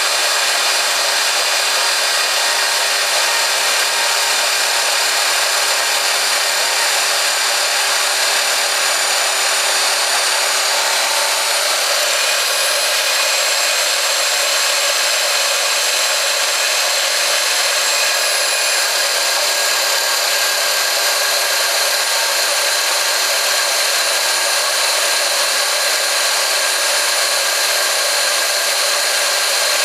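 ROX RB-100 band saw running steadily as its blade cuts through a 115 mm round pipe, with a slight shift in tone about twelve seconds in.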